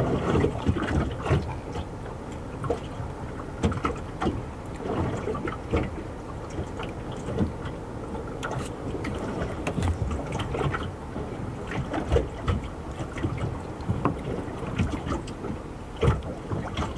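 Small waves lapping and slapping against the hull of a small moored fishing boat, with scattered short knocks and a low wind rumble on the microphone.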